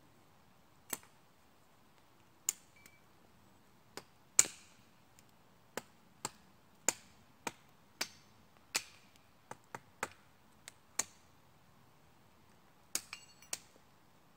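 Sharp, irregular knocks of a blade chopping into the end of a wooden pole braced on a stump, coming every half second to second with a short pause near the end. The loudest strike comes a little after four seconds in.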